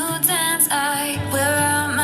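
A pop song playing through a portable Bluetooth speaker under audio test, a voice singing over the backing, with a held low bass note coming in about a second in.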